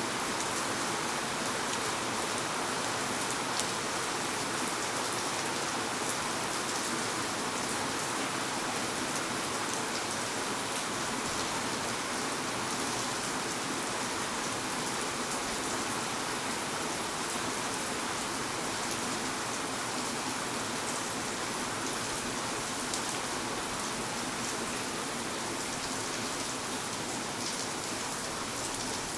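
Steady rain falling on city surfaces, an even hiss with fine scattered drop ticks.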